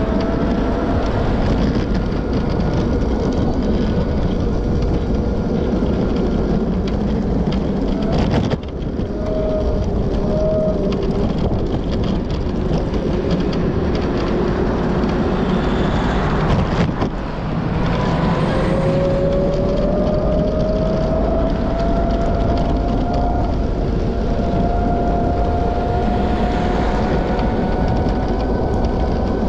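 Steady rushing wind and rolling noise from riding along a cycle lane, with a faint whine that slowly rises in pitch. The sound briefly dips twice.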